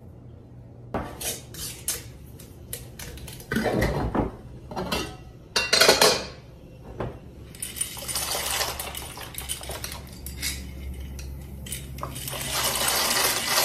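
Kitchen clatter: knocks and clinks of cookware and a glass jar being handled, then dry pasta rattling as it is poured from a glass jar into a pot near the end.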